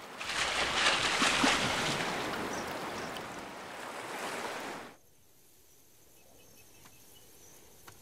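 Rushing noise of wind and water, slowly fading, that cuts off abruptly about five seconds in, leaving near silence.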